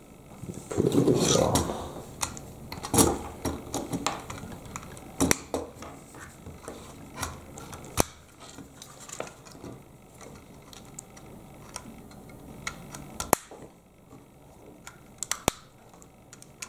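Lego plastic parts clicking and rattling as wheels are picked up and pressed onto the axles of a Lego City Fire Ladder Truck 60107 model: scattered sharp snaps and clicks, with a short burst of handling clatter about a second in.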